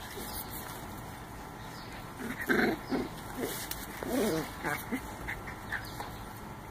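Two dogs play-wrestling, with a few short dog vocal sounds, the loudest about two and a half seconds in and another run about four seconds in.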